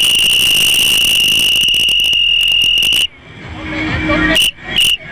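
A loud, high-pitched whistle blown in one long blast of about three seconds, then three short toots near the end.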